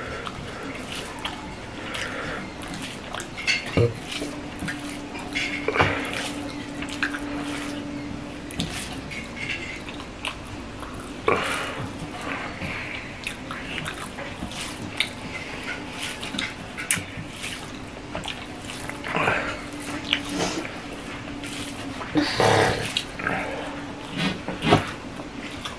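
Eating noises: fingers squishing and mixing rice with fish curry on steel plates, with wet chewing and lip smacks in short scattered clicks. A low steady hum runs underneath and stops about twenty seconds in.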